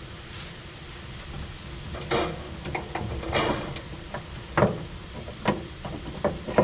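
Hand tools clicking and knocking against metal, starting about two seconds in and then coming about once a second, as a cotter pin in the jeep's throttle linkage is worked and spread.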